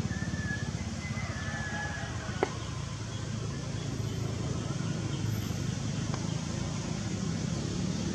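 Steady low motor hum, like an idling engine, with a single sharp click about two and a half seconds in and faint high calls in the first two seconds.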